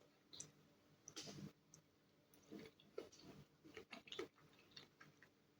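Faint, irregular chewing of soft-boiled egg: a string of small mouth clicks and smacks.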